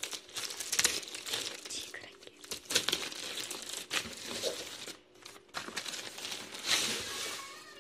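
Plastic courier mailer bag crinkling and rustling as hands pull and tear it open, in irregular bursts, with a short lull about five seconds in and a louder crinkle near the end.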